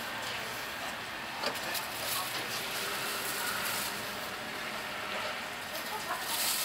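Steady outdoor street ambience of distant traffic, with a couple of short clicks, one about a second and a half in and one near the end.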